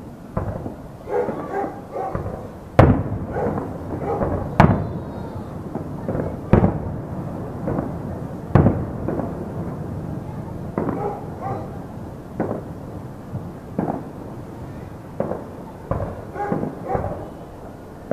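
Fireworks display heard from a distance: a string of sharp bangs from bursting shells, the loudest about three, five, seven and nine seconds in, with quicker clusters of smaller pops and crackles between them.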